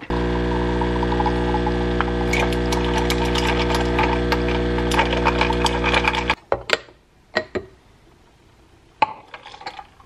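Espresso machine's pump buzzing steadily while a shot pulls into a glass, then cutting off abruptly about six seconds in. A few light clicks and knocks follow.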